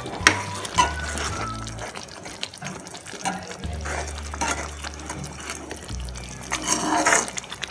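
Steel spoon stirring thick, wet Schezwan chili chutney in a pan, with short scrapes against the pan, over background music with a low bass line.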